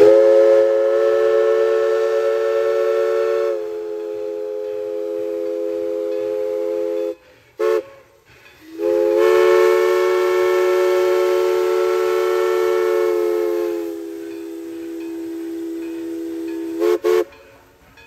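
Hancock short-bell three-chime steam whistle on East Broad Top No. 16 sounding a steady chime chord over a hiss of steam. It gives one long blast of about seven seconds, a brief toot, then a second long blast that ends in two quick toots. Each long blast gets quieter partway through.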